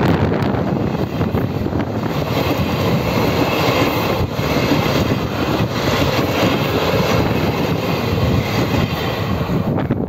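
Puyuma Express electric train passing close by, a steady rumble and rush of wheels on rails, mixed with wind buffeting the microphone.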